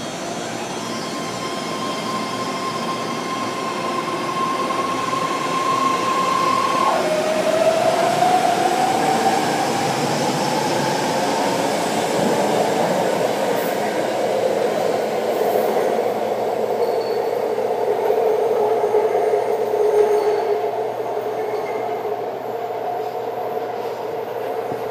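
An eight-car BART subway train pulls out of an underground station. A steady high propulsion whine drops sharply in pitch about seven seconds in, then climbs as the train accelerates, over the rising rumble of wheels on rail, which eases off near the end as the train leaves.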